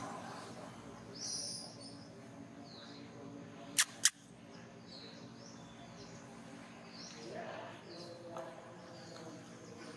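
Outdoor ambience with scattered short high chirps, and two sharp clicks about a quarter of a second apart roughly four seconds in, the loudest sounds.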